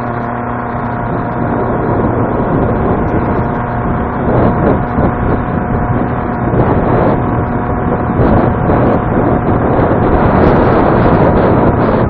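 Heavy wind noise buffeting the EKEN H9R action camera's microphone on a moving motor scooter, over the scooter's engine hum, growing louder as the ride goes on.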